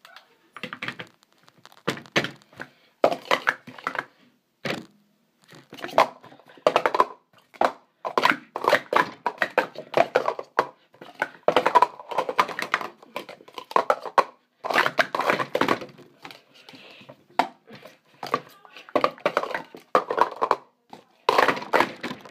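Speed Stacks plastic sport-stacking cups being stacked up and down at speed on a mat: rapid runs of plastic clicks and clattering taps, in quick bursts with short gaps between moves.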